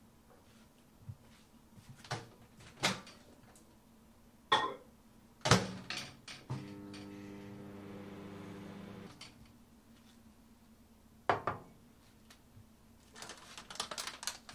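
Kitchen handling sounds: a few knocks and taps as a ceramic mug and milk carton are set down on the counter. Then a microwave oven runs with a steady hum for about three seconds, warming the mug of milk. Another knock follows, then a quick run of light clicks near the end.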